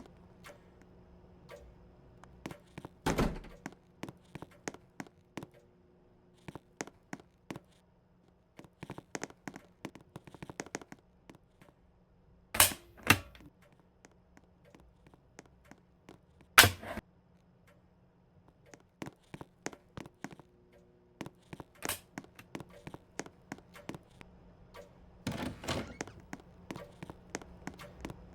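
Irregular clicks and knocks with a few louder thunks, about a dozen seconds apart, over a faint steady low hum.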